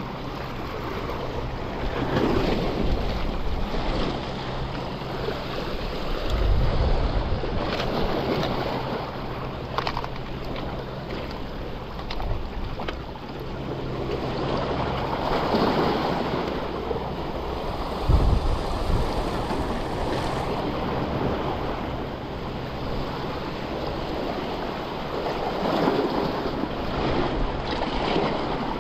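Small waves washing against shoreline rocks, the hiss rising and falling in slow swells, with wind buffeting the microphone in a couple of low bumps.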